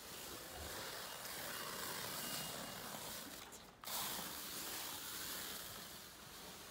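Hand pallet stretch film being pulled off the roll in a handheld dispenser as it wraps a pallet, a steady hiss with a brief break just under four seconds in.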